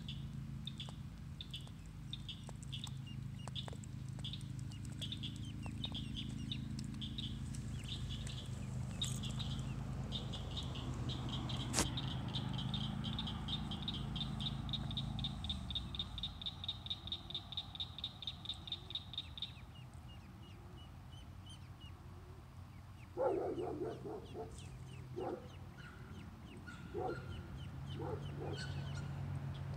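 Ducklings peeping: short high peeps about twice a second that pack into a fast, even series for several seconds, then thin out. A steady low hum runs under the first half, and a few short, louder, lower sounds come near the end.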